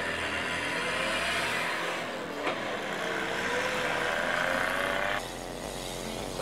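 Engines of large Shatun Neo all-terrain vehicles revving as they drive off through snow, their pitch rising and falling, over a steady rush of tyres and snow. There is a sharp click about two and a half seconds in, and the sound changes abruptly about five seconds in.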